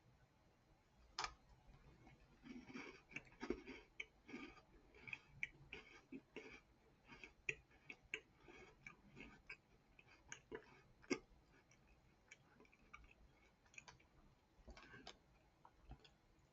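Faint, irregular crunching of a person biting into and chewing a salted cheese cookie sandwich, a cracker-like cookie with cheese filling: a sharp crack about a second in, then small crunches on and off.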